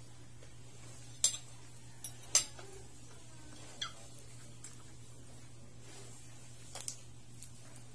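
Metal fork and spoon clinking against a plate of food: about half a dozen sharp clinks at uneven intervals, the loudest about two and a half seconds in, over a steady low hum.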